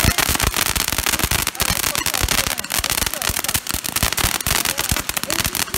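Cutting Edge "Picture Perfect" firework fountain spraying sparks with a dense, rapid crackle of many small pops.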